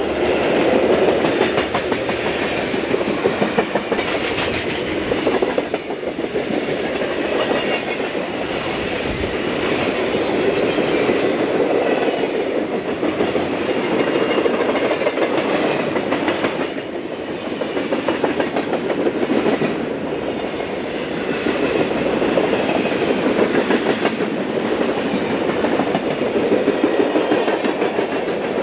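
Burlington Northern freight train rolling past close by: steel wheels clattering over the rail joints in a steady, rapid clickety-clack as the cars go by.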